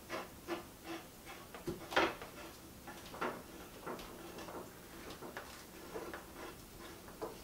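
A plastic water-supply hose fitting being turned by hand on a laundry water valve, giving a series of light, irregular clicks and knocks with one sharper knock about two seconds in.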